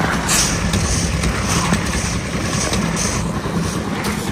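Concrete mixer machine's engine running steadily, with a hiss laid over it for about three seconds from just after the start.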